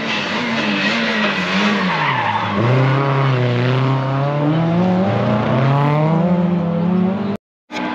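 Rally car engine slowing, then accelerating hard: the pitch falls about two seconds in, climbs steadily, drops briefly at a gear change about five seconds in, and climbs again before cutting off abruptly near the end.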